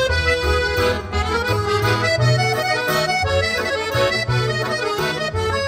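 Accordion music over a bass line that changes note about twice a second.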